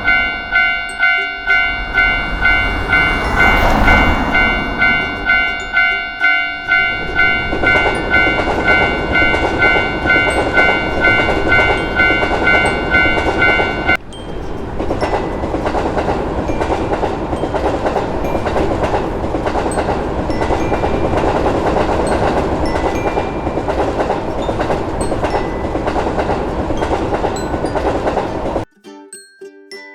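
Japanese level-crossing warning bell ringing "kan-kan" about twice a second as an electric train rumbles past. The bell stops about halfway through, and the train's wheels keep rumbling and clattering over the bumpy track until the sound cuts off abruptly near the end.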